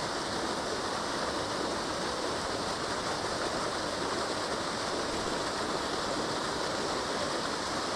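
Steady rushing and splashing of water where an inflow jet churns up into the trout pond.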